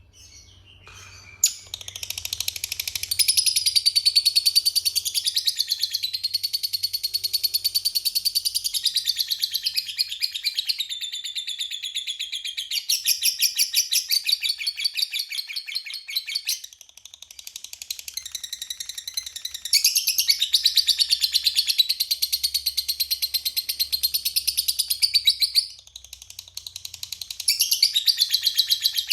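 Lovebird singing a long 'ngekek': a rapid, high-pitched chattering trill of fast repeated notes, kept up in long runs of several seconds with a few short breaks.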